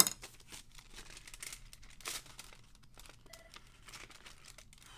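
Paper rustling and crinkling as Priority Mail envelopes and the documents inside them are handled and opened. A sharp tap comes at the very start, and a louder rustle about two seconds in.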